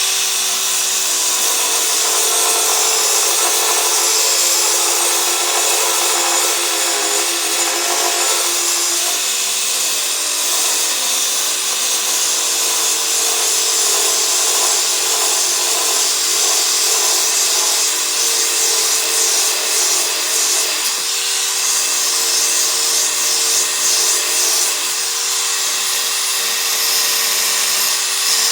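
Battery-powered mini belt sander running steadily, its abrasive belt grinding against metal with a hissing rasp over the motor's whine. The whine dips in pitch briefly a few times, about nine seconds in and again past twenty seconds.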